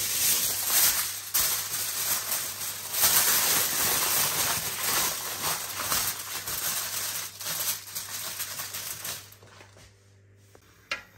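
Aluminium foil crinkling and rustling as it is pressed and crimped over a baking tray. The crackling stops about nine seconds in.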